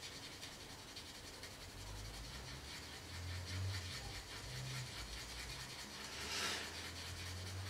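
Faint rubbing of a Mr Hobby Mr Chipping abrasive rubber block against a painted plastic model part, scuffing through the top coat to the chipping colour beneath.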